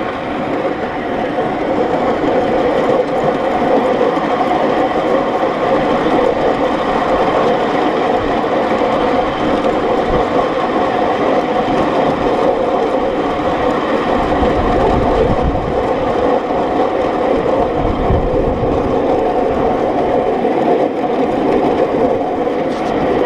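Coal-fired 7.25-inch gauge miniature steam locomotive running along its track: a steady, continuous running noise of the engine and its wheels on the rails, with stronger low rumbling between about two-thirds of the way in and near the end.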